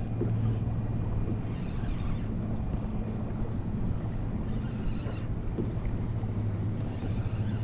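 Steady low drone of a boat engine, with wind blowing across the microphone and lapping water; two brief rushes of noise come about two and five seconds in.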